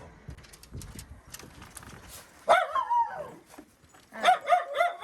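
Miniature schnauzer barking: after some light clicks and scuffs, one long bark that falls in pitch, then a quick run of about four short, high barks near the end.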